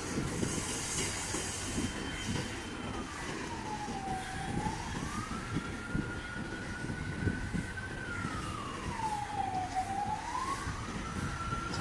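A siren wailing slowly: a single tone that falls and rises again twice, holding high between the dips. It sounds over a steady low rumble.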